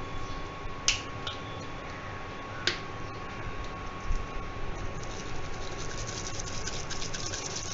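Dried oregano and chili flakes shaken from a spice shaker bottle onto bread in a frying pan: two sharp clicks about one and three seconds in, then a run of fine rapid ticks in the second half, over a steady hum with a thin high tone.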